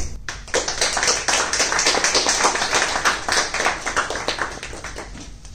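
A small audience clapping: it starts just after the opening, is at its fullest through the middle, and tapers off near the end.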